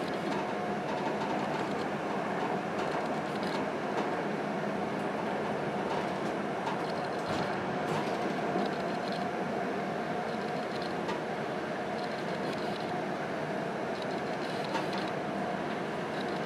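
Steady noise of an electric passenger train heard from inside the end car, beside its coupling to an ÖBB electric locomotive: an even rumble with a steady hum and a few faint ticks.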